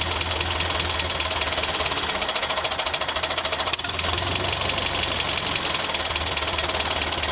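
Tractor engine running steadily with a fast, even knock.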